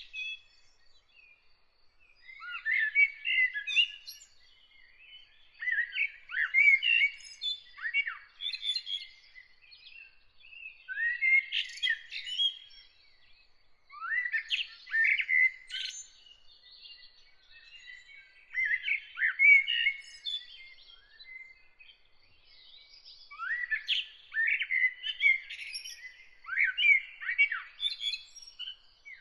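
A songbird singing separate warbled, twittering phrases, one every three to four seconds with short pauses between. A faint steady high tone runs beneath.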